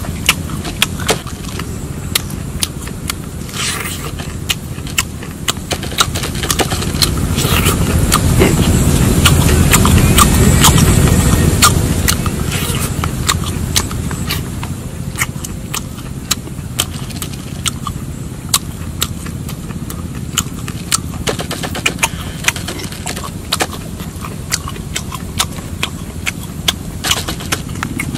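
Chewing and biting into cooked frog: irregular wet, crunchy clicks from the mouth and fingers. Under it a low rumble swells and fades about a third of the way through.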